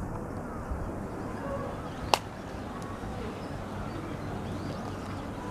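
Steady outdoor background noise with a low rumble and faint distant sounds, broken by one sharp click about two seconds in.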